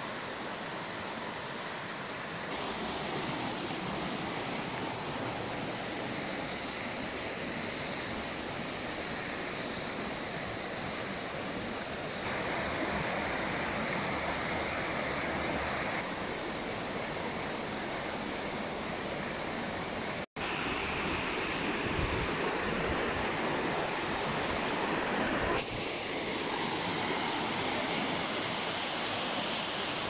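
Water rushing steadily over a small waterfall, a continuous hiss-like roar. Its level and tone shift abruptly several times, with a momentary dropout about two-thirds of the way through.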